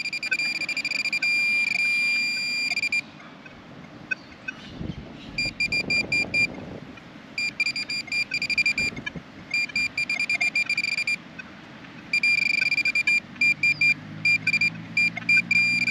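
High-pitched electronic tone of a metal detector, held steady for about three seconds, then sounding in rapid pulsing stretches. It signals a metal target in the freshly dug soil.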